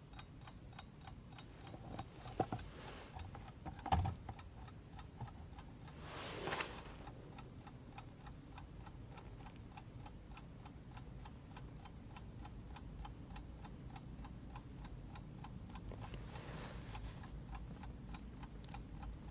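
Cheap Chinese mechanical alarm clock ticking faintly in fast, even beats. A couple of louder knocks come in the first few seconds, and a brief rustle about six seconds in.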